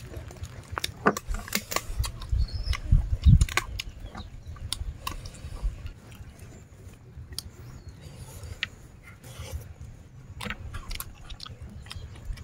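People chewing and eating papaya salad and raw vegetables, with frequent short sharp clicks and crunches. A few loud low thumps come about two to three and a half seconds in.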